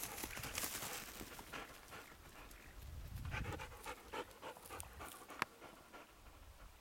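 German wirehaired pointer panting, with soft rustling footsteps through dry grass.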